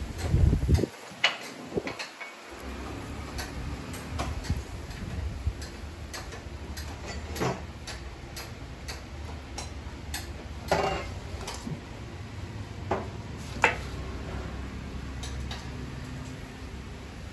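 Scattered light clicks and knocks of tools and engine parts being handled while a camshaft timing-chain sprocket is fitted, at irregular intervals over a steady low hum, with a dull thump in the first second.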